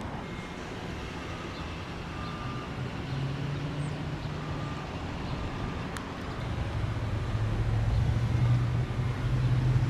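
Outdoor street traffic noise: a steady low vehicle rumble that swells into a louder low engine hum over the last few seconds.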